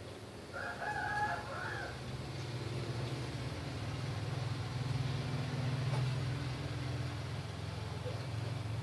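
A rooster crows once in the background, a single call of about a second starting about half a second in. Under it runs a steady low engine hum that grows louder toward the middle.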